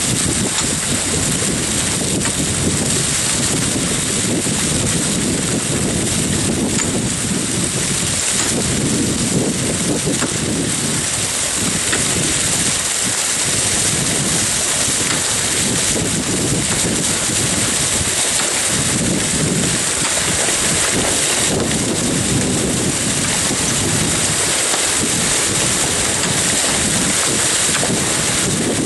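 Wind buffeting the microphone outdoors: a steady rushing hiss with a gusty, uneven low rumble.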